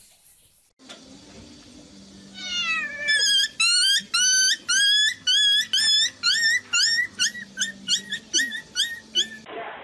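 A small puppy yelping: a fast run of high-pitched, rising squealing cries, about two to three a second, coming quicker near the end.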